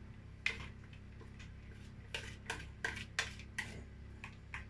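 A spoon clicking and tapping against a plastic bowl and a glass baking dish while grated cheese is scraped out and spread. About a dozen light, irregular taps, bunched together in the middle.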